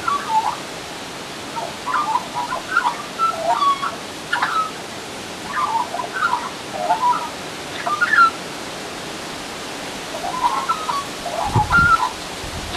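Australian magpie singing its warbling song: several bouts of quick notes jumping up and down in pitch, with pauses of a second or so between them.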